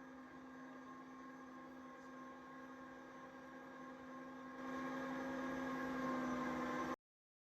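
A steady electrical-sounding hum made of several fixed tones, louder from about four and a half seconds in, cutting off abruptly near the end.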